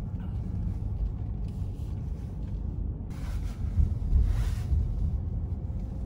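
Steady low road and engine rumble heard inside a moving car's cabin, with two brief swells of hiss about three and four seconds in.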